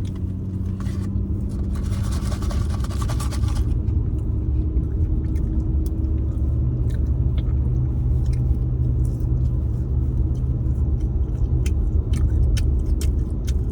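Steady low rumble of a car heard from inside the cabin, with a brief rushing, rustling noise about two seconds in and a few faint clicks.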